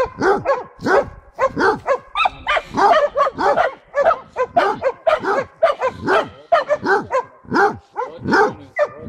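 Basset hound barking repeatedly at a downed wild boar, a steady run of short barks about three a second. It is a bay dog announcing the found boar to the hunters.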